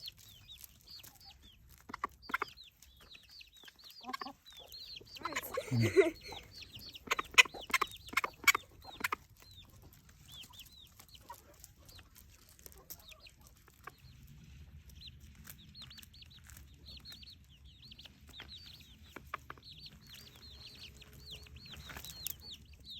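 Chickens clucking, with many short high chirps all through. Sharp clicks and knocks come mostly in the first third, the loudest near a quarter of the way in.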